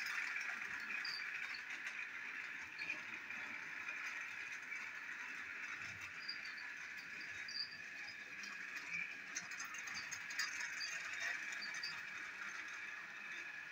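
Battery-powered toy train running steadily round a plastic track, pulling a string of small trucks: a constant whirring motor with the light rattle of wheels and trucks, and a few small clicks.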